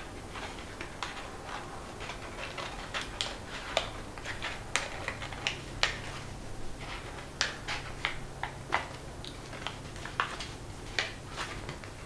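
Folded paper crackling and crinkling in many small irregular clicks as origami modular units are pinched and pushed one inside the other.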